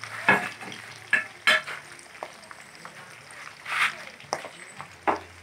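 Food sizzling as it fries in metal woks, with about five short, sharp clicks and scrapes scattered through.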